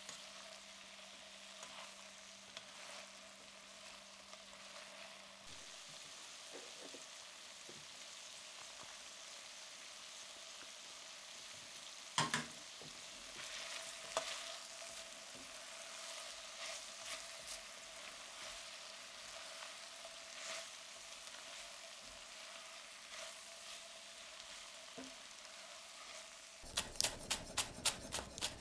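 Chicken and vegetables sizzling in a stainless steel sauté pan, with scattered scrapes and taps of a metal spatula and one sharper knock about twelve seconds in. Near the end, a chef's knife chopping fresh coriander on a wooden board, about three strikes a second.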